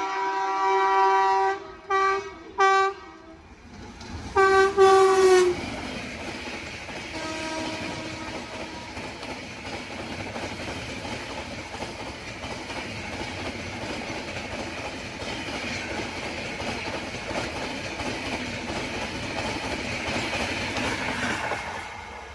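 WAP-7 electric locomotive horn: a held blast, two short toots, then a last longer blast whose pitch drops at its end. Then the train runs past with steady wheel clatter over the rail joints, fading near the end.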